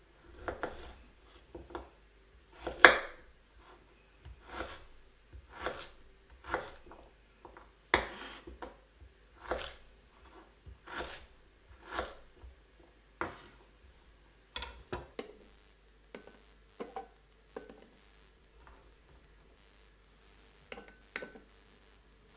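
Chef's knife chopping a peeled piece of ginger on a bamboo cutting board, each cut ending in a sharp knock of the blade on the wood, about one a second. The cuts become fainter and more spread out after about fifteen seconds.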